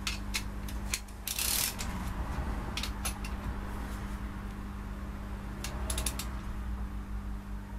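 Hand tools and metal parts handled on a workbench: a few scattered clicks and clinks, with a short cluster of clicks about six seconds in, over a steady low hum.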